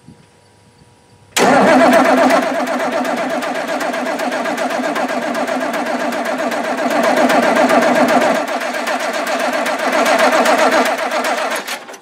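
Oliver 1650's diesel engine cranking over on the starter for about ten seconds without firing, then cutting off near the end. It won't catch because no fuel is reaching the loosened injector lines.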